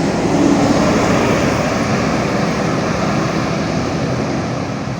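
A heavy road vehicle passes close by, its engine and tyres making loud, steady road noise.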